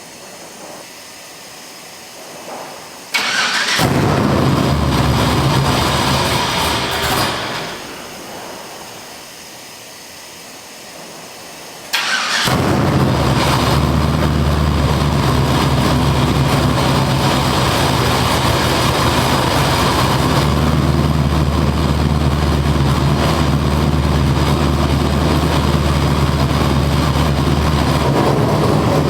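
Cold GM LS V8 being started on a fuel-injection cold-start tune: it catches about three seconds in, runs for a few seconds and dies away, then fires again about twelve seconds in and settles into a steady idle.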